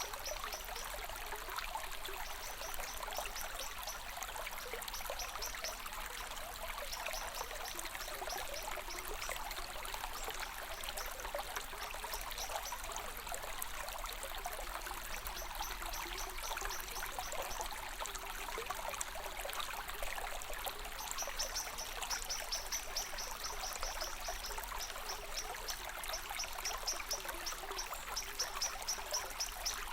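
Stream water trickling and pouring steadily. Over it come high, rapid chirps in short repeated runs, more frequent in the second half.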